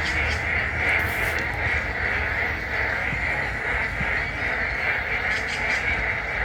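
Frog chorus: many frogs calling at once in a dense, continuous croaking, with a low steady rumble beneath it.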